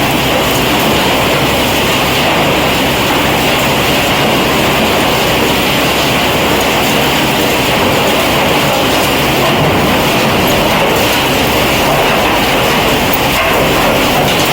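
Wood-chip crusher running, a loud steady mechanical grinding and clattering with no pauses.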